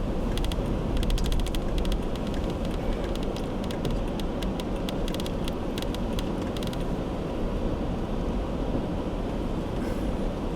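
Car driving on a snowy road, heard from inside the cabin: a steady low road and engine rumble. A run of rapid, irregular clicking and ticking from an unclear source stops about seven seconds in.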